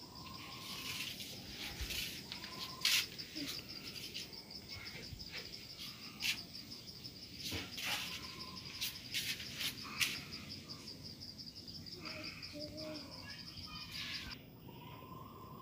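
An insect trilling steadily in a rapid, high-pitched pulse that stops suddenly near the end, with a few short chirps and scattered sharp clicks and knocks.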